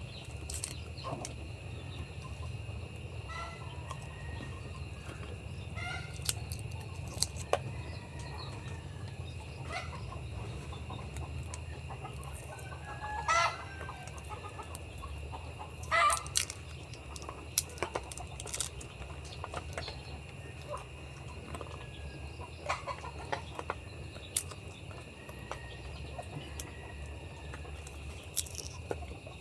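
Chickens clucking now and then in the background, over a steady low hum, with scattered sharp clicks and crunches.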